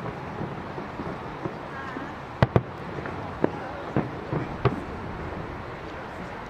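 Aerial fireworks shells bursting overhead: a string of sharp booms and pops, loudest a pair close together about two and a half seconds in, followed by single bangs roughly every half to one second.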